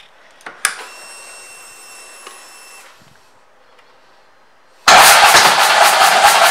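Harley-Davidson Ultra Classic switched on: a click, then a steady high whine for about two seconds as the fuel pump primes. About five seconds in, the V-twin starts abruptly and runs loud through its Rinehart aftermarket exhaust.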